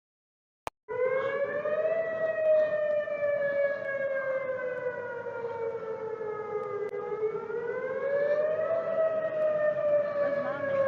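A warning siren wailing over a steady hiss: its pitch rises, falls slowly for about five seconds, then rises again and starts to fall near the end. It begins about a second in, after a short silence and a single click.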